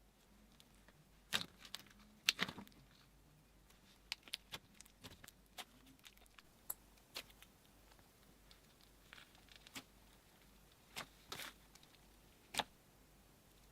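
Slime being handled and pressed, giving sharp little clicks and pops at irregular intervals, a few clustered about two seconds in and the rest spread out.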